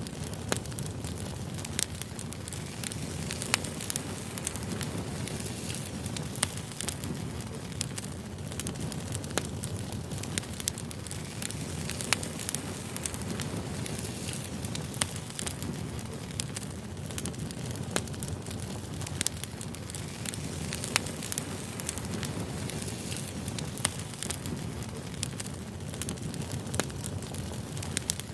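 Wood fire burning: firewood crackling and popping in frequent irregular snaps over a steady low rumble of flame.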